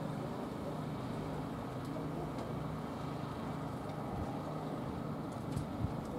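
Steady low hum of an engine running at idle, even and unchanging, with a few faint ticks near the end.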